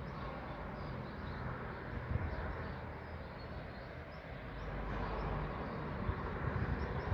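Outdoor ambience: a low rumble that swells in the second half, with small birds chirping faintly now and then; no siren tone stands out.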